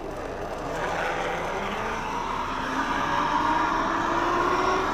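Zipline trolley running along the steel cable, a rushing whir that builds and climbs slowly in pitch as the rider picks up speed.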